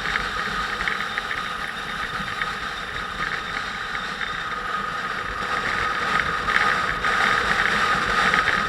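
Motorcycle engine running steadily during a ride, with a steady high whine, getting a little louder in the last few seconds.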